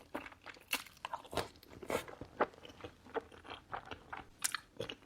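Close-up mouth sounds of chewing a big bite of soup dumpling and Buldak spicy noodles: a run of wet smacks and clicks, irregular, a few each second.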